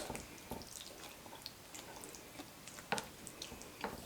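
Spoon working through thick baked beans: faint soft wet squishes and a few light clicks, the sharpest about three seconds in.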